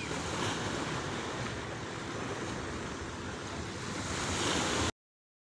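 Sea surf washing on a beach, a steady even rush of waves; it cuts off abruptly near the end.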